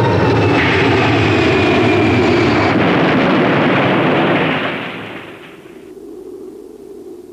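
Loud roar of a Boeing 747's jet engines at takeoff power as the airliner bears down on the other jet in a runway collision. The roar dies away after about four and a half seconds, leaving a low steady hum.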